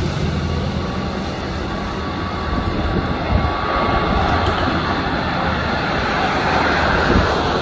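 Jet airliner (Airbus A320) on final approach, a steady rumble of its engines that builds a little louder in the second half.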